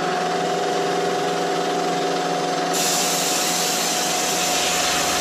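Bridgeport EZ Trax CNC knee mill running with a steady motor whine as a 3/4-inch four-flute high-speed steel end mill interpolates a combustion chamber in a VW cylinder head. About halfway through, a loud hiss of a compressed-air blast at the cut starts and keeps going.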